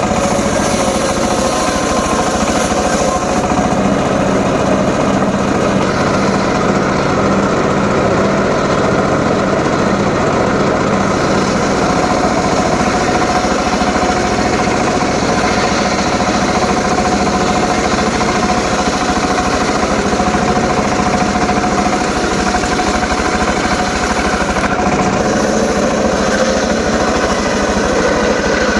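Homemade circular saw rig running steadily while sawing short teak logs: a continuous mechanical drone with a steady whine from the blade, the tones shifting a little as the cut changes.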